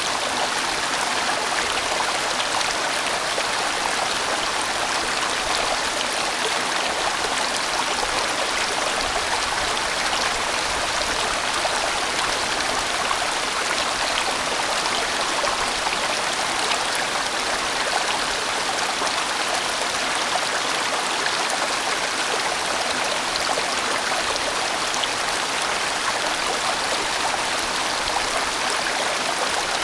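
A large valley stream rushing and splashing over rocks: a steady, even water noise that does not change.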